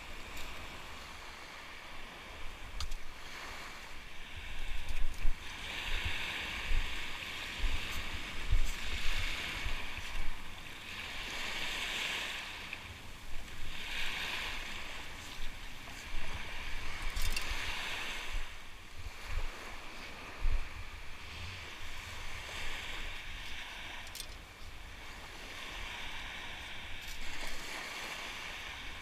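Shallow surf washing over a sand beach, with a series of swishes every few seconds as a perforated metal sand scoop is dipped and shaken in the water to sift out the sand. A steady low rumble of wind on the microphone runs underneath.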